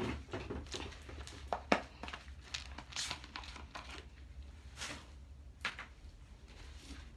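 A scrub sponge working a foamy toilet bowl: irregular wet squishes, splashes and sharp clicks, the sharpest about a second and a half in.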